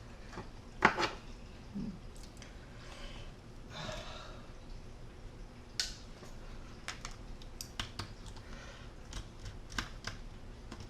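Light, scattered clicks and taps of a small precision screwdriver and tiny screws as laptop mounting screws are backed out and handled, with a soft rustle about four seconds in.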